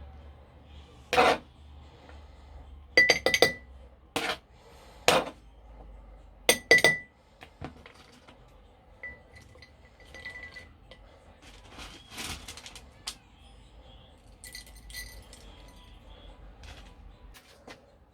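Glassware and utensils clinking: a series of sharp chinks with a short bright ring, bunched in the first seven seconds, then fainter clinks and handling.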